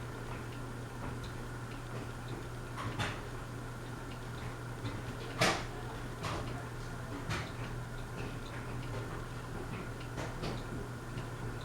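Westinghouse Apollo Elite ceiling fan running on medium speed: a steady low motor hum with a faint higher tone, and scattered irregular clicks and ticks, the loudest about halfway through.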